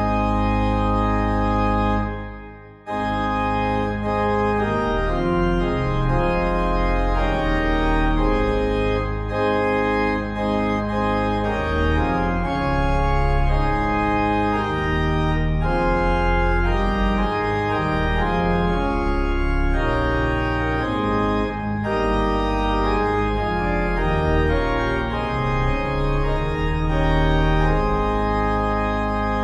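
Organ playing a postlude of sustained, slowly changing chords, with a brief break about two and a half seconds in.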